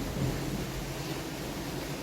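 Steady rain hiss, with a brief low rumble of thunder swelling a fraction of a second in.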